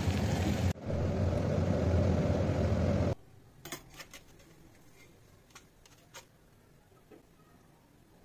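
A steady, loud rushing noise that cuts off abruptly about three seconds in. After that, faint light taps and rubbing of hands on a stainless steel plate being greased with oil.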